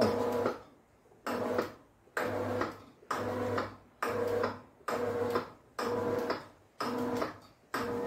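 A GDO Roll 55 roller door motor is running as the slatted shutter winds up, driven with the up button held while its up limit is being set. The hum comes in regular pulses about once a second, each starting sharply and fading.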